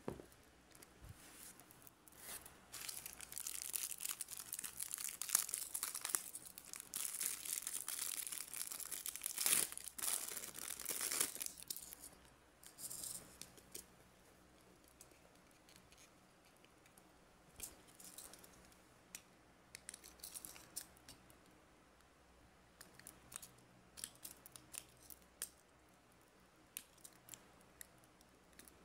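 Plastic packaging crinkling and tearing for about ten seconds as accessories are unwrapped. After that come scattered light clicks and rustles from a plastic phone case and a bear-shaped stand being handled.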